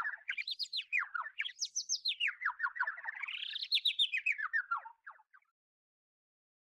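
Bird song: a long, fast run of chirps, about eight a second, whose pitch slides down, up and down again, trailing off about five seconds in.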